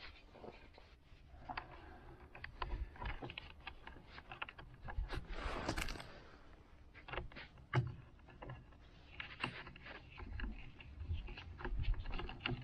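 Hands working a clear plastic motorcycle windscreen and its black plastic mounting brackets: scattered clicks, taps and scrapes of plastic on plastic, with a longer rustling scrape about five to six seconds in.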